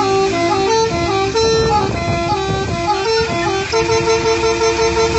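Multi-tone 'telolet' horn playing a quick melody, stepping from note to note every fraction of a second, over a low rumble.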